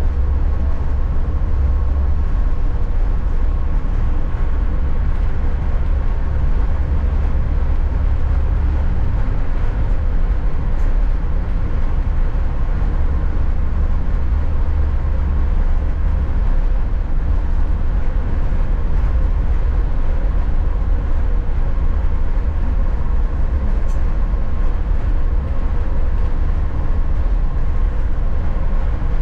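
Passenger train in motion: a steady, heavy low rumble with a faint constant hum above it, unchanging throughout.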